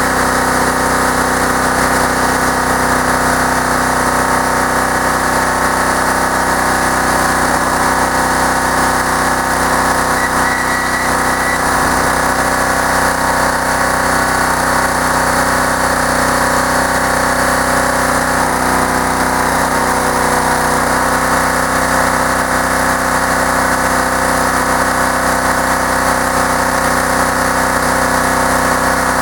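Wood splitter's engine running steadily at an even speed, with no let-up or change in pitch.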